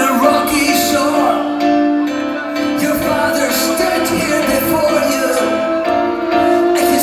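Live band music: a fiddle plays a wavering solo line over held keyboard chords.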